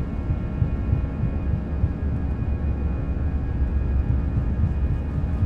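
Airbus A319 cabin interior climbing after lift-off: a steady low rumble of the engines and airflow, with faint steady engine tones above it.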